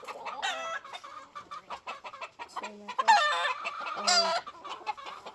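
Gamefowl calling: several pitched chicken calls, the loudest about three seconds in and just after four seconds in, with light scattered clicks between them.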